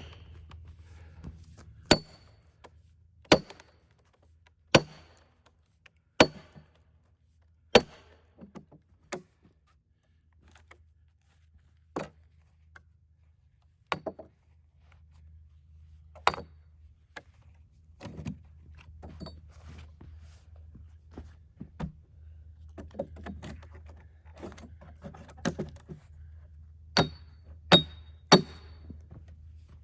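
A hammer striking a steel splitting wedge driven into a cedar log: sharp, ringing blows about every second and a half for the first several strokes, then lighter, scattered strikes and a quick run of blows near the end.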